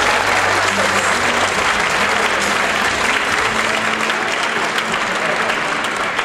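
Theatre audience applauding steadily, a dense even clapping throughout, with some low music tones faintly underneath.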